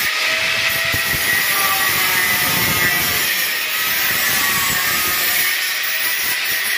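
Handheld angle grinder with a thin cutting disc cutting into a stainless steel railing tube, running steadily with a hissing grind from disc on metal.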